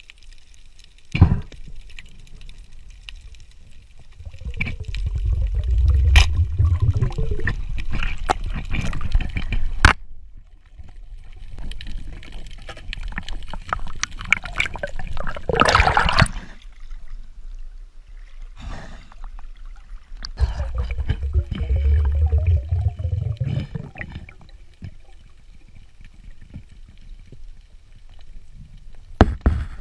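Underwater bubbling and gurgling, as from a diver's exhaled air, in two long low rumbling stretches with a louder burst between them, and scattered sharp clicks.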